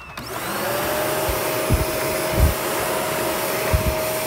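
Shark NV500 upright vacuum switched on, its suction motor running up to a steady whine within the first second, with a few low thumps from the machine being handled; the brush roll is not turning.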